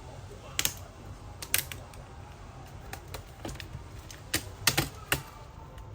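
Sharp, irregular plastic clicks and snaps as a laptop keyboard is pried out of its top case with a flat screwdriver. About nine clicks in all, several in quick pairs, the loudest near the end, over a steady low hum.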